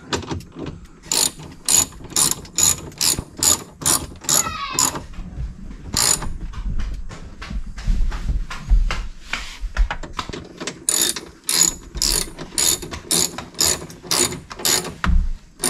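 Hand ratchet wrench clicking in quick strokes, in two runs of about three clicks a second, as bolts are tightened on a power window regulator inside the door. Between the runs come quieter handling noises and a brief sweeping scrape.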